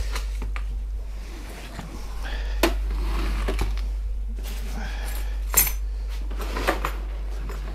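A few scattered clicks and knocks of tools and plastic parts being handled and set down on a workbench, over a steady low hum.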